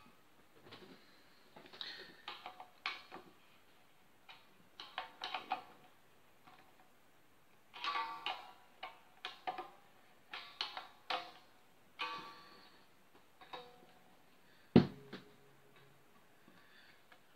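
Hands and a screwdriver working at the Floyd Rose tremolo bridge of an unplugged electric guitar while the tremolo is set to float: a run of small clicks and taps, with strings ringing briefly as they are touched. One sharper knock comes about 15 seconds in.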